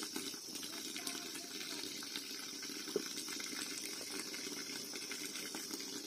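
Spring water pouring steadily from a pipe spout and splashing onto rock, with one faint click about halfway through.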